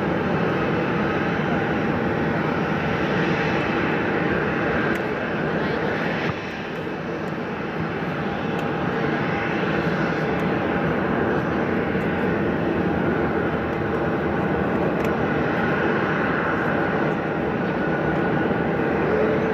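Boeing 747-400's four jet engines running at taxi power as the airliner rolls along the taxiway: a steady engine noise with a faint held whine, dipping briefly about six seconds in.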